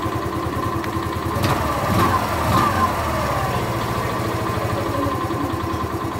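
Hero Xoom 110 scooter's single-cylinder engine idling steadily, a little louder for a moment about two seconds in.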